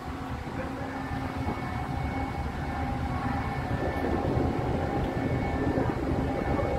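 Low, steady rumble of heavy diesel engines, with faint steady whining tones over it, slowly growing louder.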